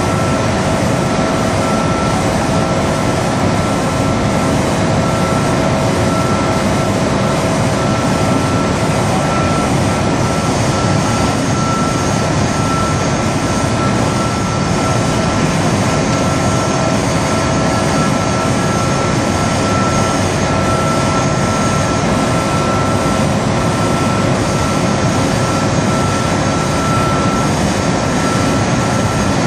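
Steady, loud drone of factory machinery on a plant floor: a dense rush of mechanical noise with a constant whine held at two pitches, unchanging throughout.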